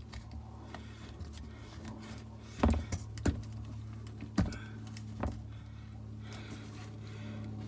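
Handling noise as a plastic strainer is screwed by hand onto a 12-volt RV water pump: a few sharp plastic clicks and knocks, the loudest about two and a half seconds in, over a steady low hum.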